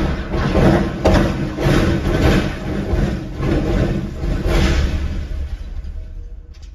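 A city bus shell rolling over on a stunt rig and being dragged across wet pavement, with a heavy engine running hard under it. Several sharp metal knocks and scraping come about a second apart, and the noise fades near the end.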